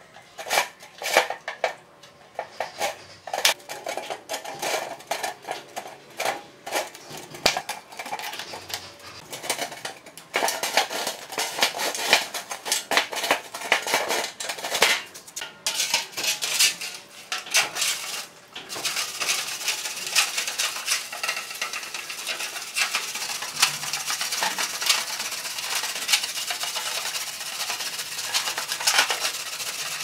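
Metallic clinks, knocks and scrapes as a screwdriver pries the plastic rim off a stainless steel washing-machine drum and the drum is handled. About two-thirds of the way through, a steady hiss of tap water starts running onto the drum, with clinks as it is rubbed clean.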